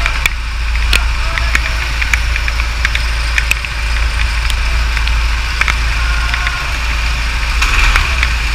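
Go-kart engines idling while the karts wait in line, with a steady low rumble and hiss and irregular sharp ticks of rain striking the camera.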